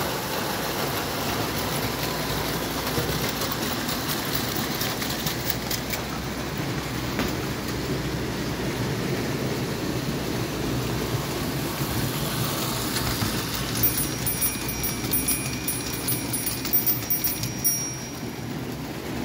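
Tinplate O-scale model trains running on metal track: a steady rumbling clatter of wheels and motors. Near the end, for a few seconds, a high thin whine with rapid clicking sits over it.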